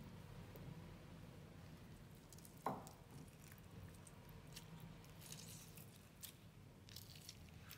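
Faint wet squishing and crackling of a lime being squeezed by hand, with a single sharp click about two and a half seconds in.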